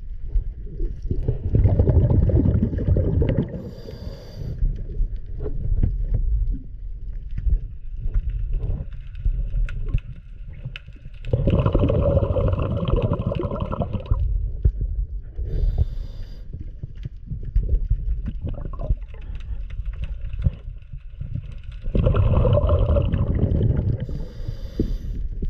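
Muffled underwater gurgling and bubbling that swells about every ten seconds, each swell followed by a brief high hiss.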